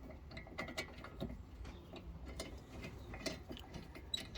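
Light, irregular metal clicks and taps of front brake caliper parts and pads being handled and worked loose.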